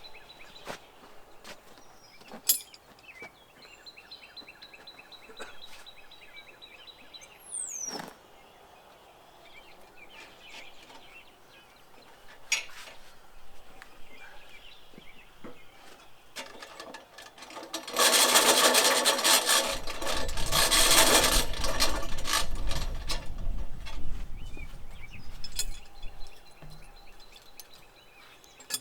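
Quiet outdoor background with bird chirps, a steady high insect buzz and a few scattered clicks. About two-thirds of the way through, a loud mechanical noise breaks in for about six seconds, then stops.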